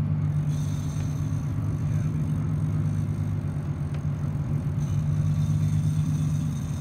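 Fishing boat's engine running steadily at low speed, a continuous low drone.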